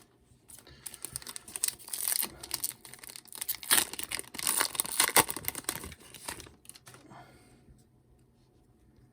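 The wrapper of a 2015 Panini Prestige football card hobby pack being torn open and crinkled, a dense crackling that fades out about seven seconds in.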